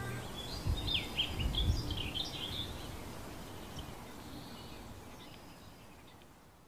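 Small birds chirping in short, downward-sweeping calls over faint outdoor background noise, with some low rumbling in the first couple of seconds. The sound fades away gradually toward the end.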